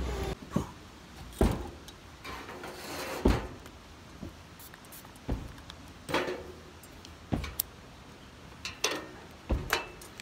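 Irregular knocks, clicks and plastic crinkling as a vacuum-sealed plastic meat package and small objects are handled and set down on a table.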